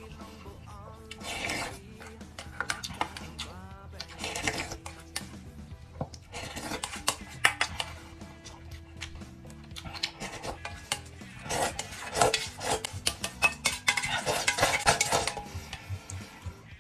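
A spoon scraping and clinking against a stainless steel bowl as the last food is scooped out: irregular runs of short scrapes and clicks, busiest in the second half.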